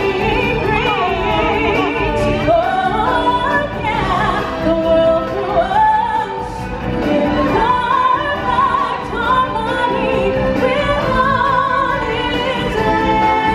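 Amplified live show music with a woman singing, her voice sliding and wavering through long, ornamented notes over full backing music.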